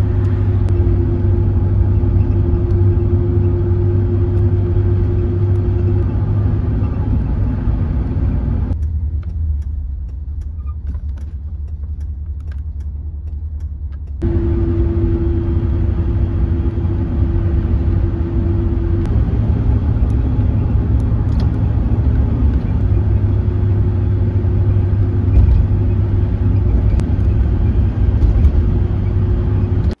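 Car driving at road speed heard from inside the cabin: a steady low rumble of tyres and engine with a faint even drone. It turns quieter for about five seconds in the middle, then returns to the same level.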